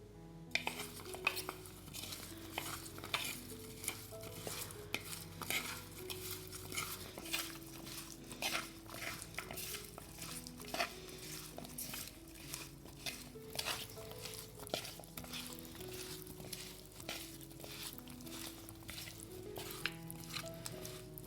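A utensil stirring and scraping against cookware, in many quick irregular clicks and scrapes that start about half a second in, over soft background music.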